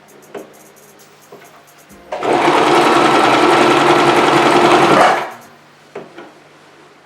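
Singer Promise 2 (1512) electric sewing machine running at a steady speed for about three seconds, stitching. A few light clicks come before and after it.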